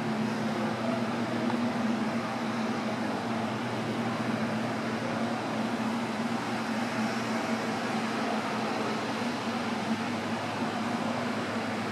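Steady mechanical hum with a rushing hiss of moving air, the constant drone of indoor ventilation or air-handling equipment.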